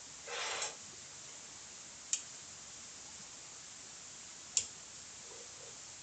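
A brief scrape under a second in, then two sharp single clicks about two and a half seconds apart, over a steady hiss.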